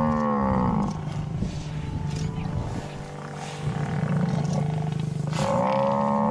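Cape buffalo bellowing in distress: a long drawn-out call fades out about a second in and another begins near the end, with lower, rougher growling and scuffling in between.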